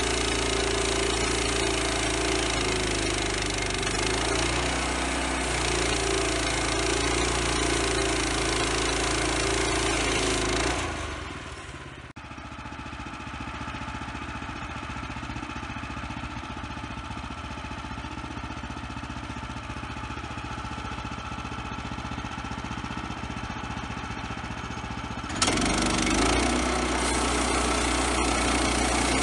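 Woodland Mills HM122 portable bandsaw mill's gas engine running steadily under load as the band blade cuts through a log. About eleven seconds in it drops to a quieter steady run, then comes back loud near the end.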